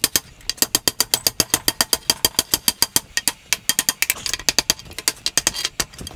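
Rapid, even hammer blows on a hot iron wagon tire, several a second, driving and setting it down onto the wooden wheel as it shrinks.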